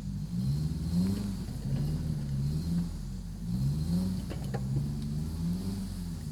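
A motor vehicle's engine revving up and down over and over, its pitch rising and falling about once a second.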